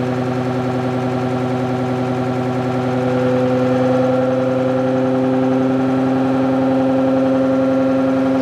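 Pulsed DC stepper motor (the ReGen-X) running on a test bench, a steady electric hum with a strong tone and overtones. It grows a little louder about three seconds in as the motor speeds up slightly.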